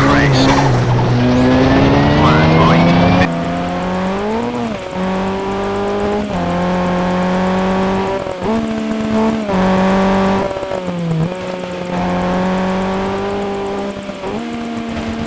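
Toyota Celica's turbocharged engine pulling hard on a winding road, its pitch holding, then dropping and climbing again several times as the throttle is lifted and reapplied. The sound changes abruptly about three seconds in.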